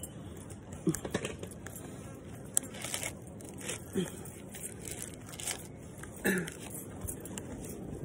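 Dry coconut husk fibres being torn and pulled away from a sprouted coconut by hand, a string of irregular crackles and tearing snaps. A few short voice sounds with falling pitch come through about one, four and six seconds in.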